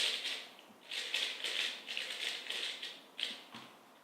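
Weilong GTS 3x3 plastic speedcube being turned quickly by hand: runs of rapid clicking turns with short pauses between them, the longest run about a second in, dying away near the end.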